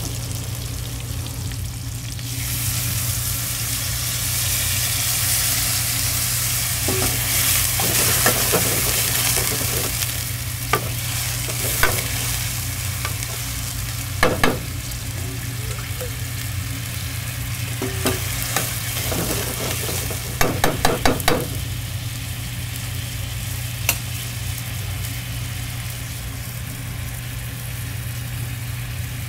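Stir-frying in a wok: food sizzles in hot oil with a steady hiss, louder for the first several seconds. A cooking utensil clanks against the wok now and then, with a quick run of strikes about twenty seconds in, over a steady low hum.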